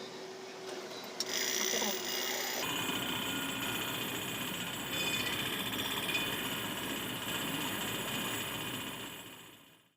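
Homemade doorbell ringing: a DC motor drives a striker against a metal bowl, making a continuous metallic ringing. It starts with a click about a second in and fades out near the end.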